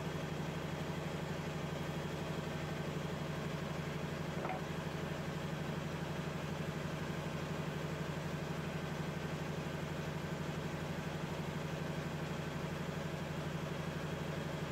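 A machine running steadily, an even, engine-like low hum that does not change. A faint single tick sounds about four and a half seconds in.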